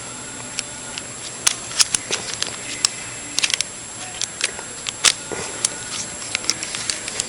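Irregular small clicks and clinks as a metal snap link is worked through the hole of a phone lock housing, over a steady background hiss.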